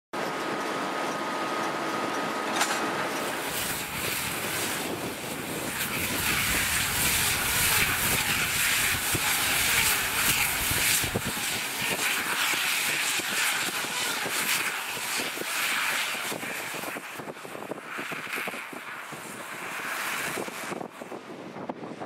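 A John Deere tractor and the McHale round baler-wrapper it pulls, running as they bale and wrap silage: a dense mechanical noise. It grows louder through the middle and fades as the outfit moves away near the end.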